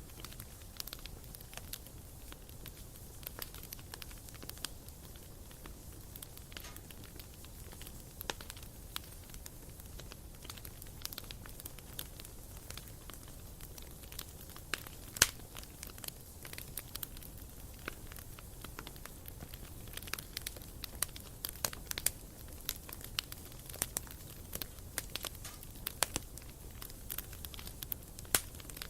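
Wood campfire crackling, with irregular sharp snaps and pops from the burning wood, coming more thickly in the second half; one pop about halfway through is much louder than the rest.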